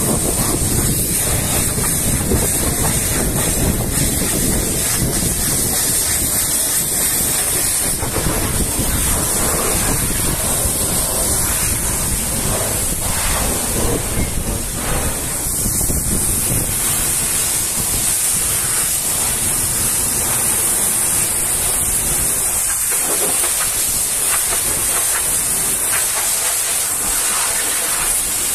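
High-pressure washer spraying water against the cab of a Volvo FH 500 truck, a steady loud hiss, with wind noise on the microphone that eases about two thirds of the way through.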